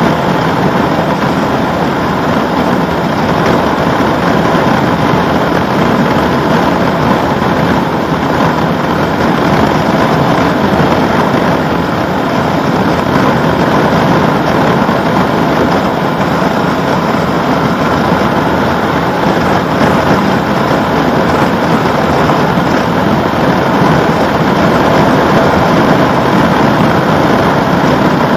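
Honda CB1100RS air-cooled inline-four engine running at a steady cruise, mixed with constant wind and road noise at speed. No change in engine speed.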